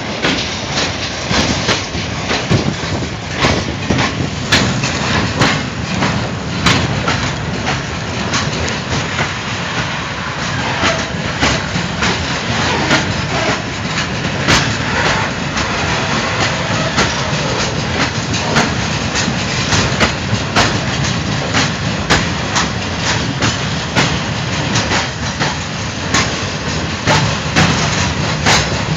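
Freight train of tank wagons rolling past, a steady rumble of wheels on rail broken by many irregular sharp clacks as the wheels cross rail joints.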